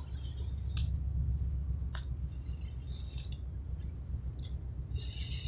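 Steady, low, throbbing rumble of a large passenger ship's engines, with a few faint light clicks over it.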